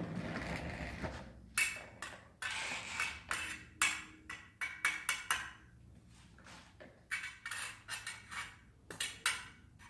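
Welding rod scratched and tapped against rusty steel angle iron, giving short irregular crackles and clinks as a car-battery-powered arc keeps failing to catch. The rust on the metal is stopping the arc from striking.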